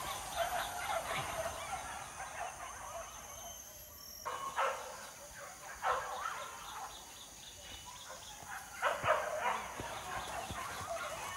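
A pack of hunting dogs yelping and baying, a rapid chatter of overlapping yelps for about four seconds, then single yelps a second or more apart.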